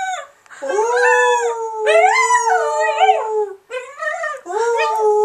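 A small dog and people howling together. A long, drawn-out howl of several overlapping voices starts about half a second in and lasts about three seconds, followed by shorter howls.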